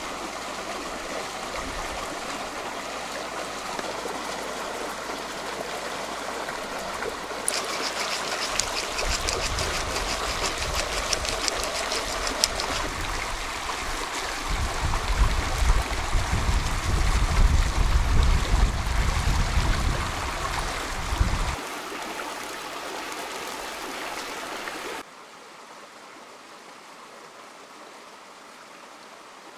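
Stream running over rocks, a steady rush of water. A fast run of ticks comes in for a few seconds, a low rumble joins from about 9 to 21 seconds, and the water drops suddenly quieter about 25 seconds in.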